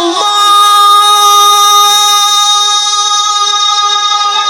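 A male Quran reciter's voice holding one long, steady, high note in tajweed recitation, a drawn-out vowel after a melodic run, fading slightly near the end.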